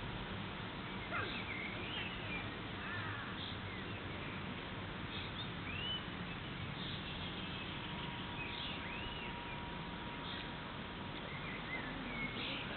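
Open-air ambience: a steady background hiss with scattered short bird chirps and whistles, some rising and falling in pitch.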